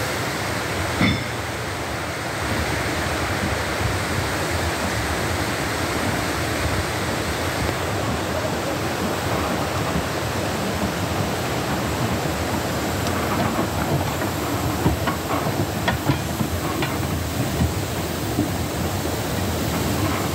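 Steady hiss of steam escaping from the narrow-gauge steam locomotive Tom Rolt as it stands, with a few light clicks and knocks in the second half.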